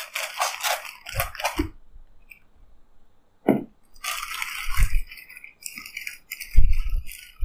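Plastic packaging crinkling and rustling as a sealed packet is cut and pulled open by hand, in two spells with a pause of about two seconds between. Dull thumps come near the end, loudest about two-thirds of the way in.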